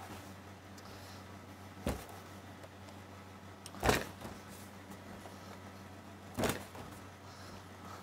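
Three dull knocks, a couple of seconds apart and the loudest about halfway through, as puff pastry is cut and handled on a stainless steel worktop, over a steady low hum.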